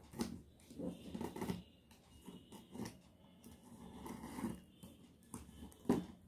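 Scissors cutting and scraping along the packing tape of a cardboard box in irregular snips and rustles, with a sharp click near the end.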